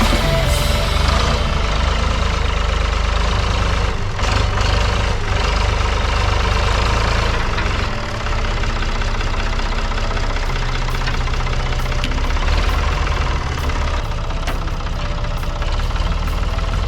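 1970 Ford 4500 backhoe's engine running steadily, with brief dips in level about four and eight seconds in. Sharp clicks or knocks sound in the second half.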